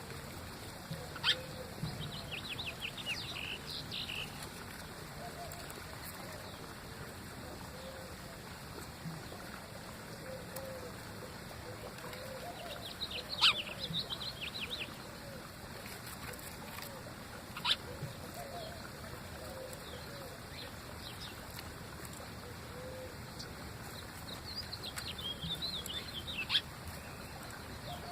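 Small birds chirping in three short bursts of quick high-pitched twittering, with a few sharp clicks and faint lower warbling over a steady background hiss.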